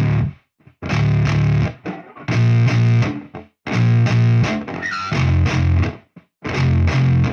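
Music: a distorted electric guitar playing a riff of held chords about a second long, chopped by short silent gaps.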